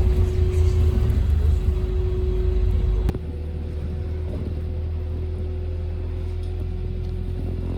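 Steady low rumble with a constant hum, stepping down in level after a click about three seconds in.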